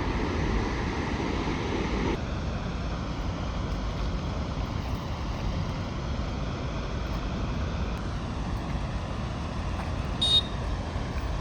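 Steady roar of a tall waterfall in heavy monsoon flow. About two seconds in, the sound thins out and loses some of its middle range. Near the end a brief high-pitched tone sounds once.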